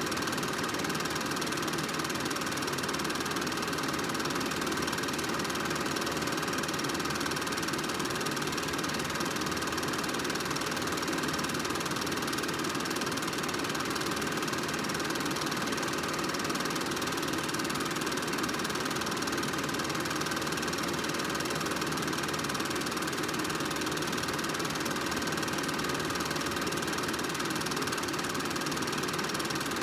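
Film projector running steadily, a continuous mechanical whir that does not change.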